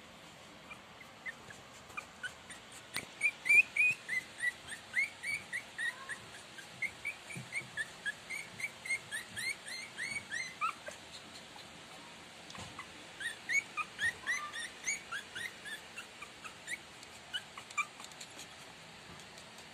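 20-day-old Shih Tzu puppies whimpering in rapid strings of short, high-pitched squeaks, starting about three seconds in, pausing briefly, then squeaking again for several seconds.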